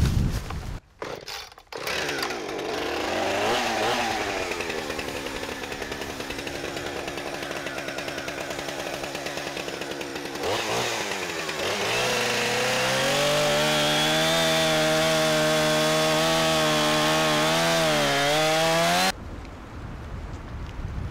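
Gas chainsaw running, its engine note wavering up and down. About twelve seconds in it becomes louder and steadier, then cuts off suddenly near the end.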